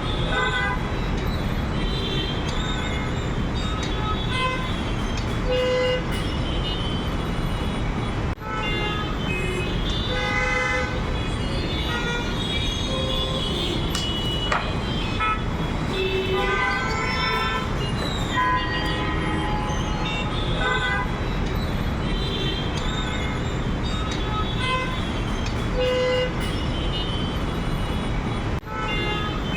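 Road traffic jam: many vehicle horns honking in short, overlapping blasts of different pitches over a steady rumble of idling and crawling engines.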